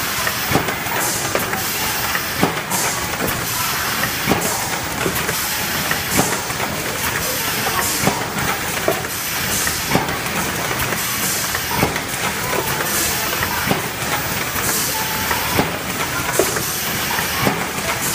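Automatic cartoning machine for facial-mask pouches running continuously: a steady mechanical clatter with sharp clacks repeating at a regular pace and recurring short hisses of air.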